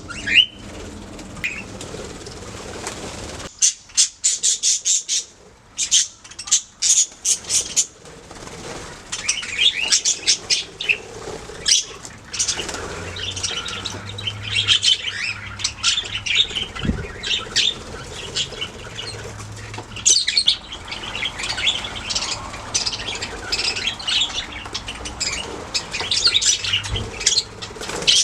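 Budgerigars chirping and warbling, several birds at once. A run of quick, sharp chirps comes about four seconds in, then continuous busy chatter.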